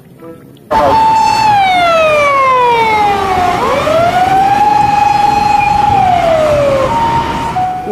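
Japanese emergency vehicle's siren wailing, starting just under a second in: one slow tone that falls, climbs back up, holds, then falls again, with a short steady tone near the end.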